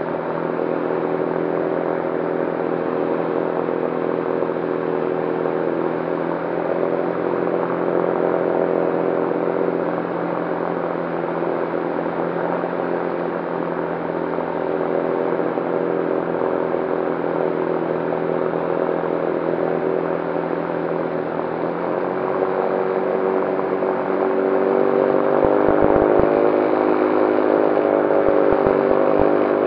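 Electric motor and propeller of an electric ultralight aircraft, a steady whine over rushing wind noise. The pitch changes about three-quarters of the way through, then rises a little and grows slightly louder near the end as the power is adjusted on the landing approach.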